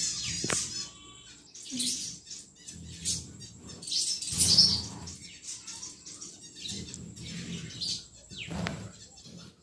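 A colony of zebra finches calling with many short, high chirps, with several low rustling bursts between them.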